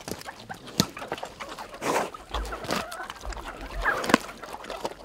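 Chickens clucking around a pig, with scattered sharp clicks and crunches as the pig roots and chews at split coconut halves.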